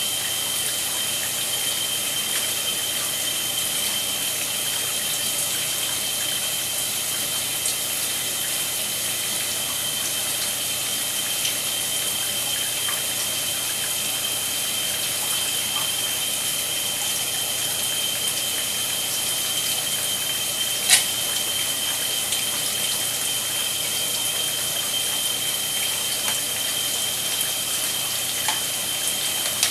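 Shower running: a steady hiss of water spray with a steady high-pitched tone under it. A single sharp click stands out about two-thirds of the way through, with two fainter ones near the end.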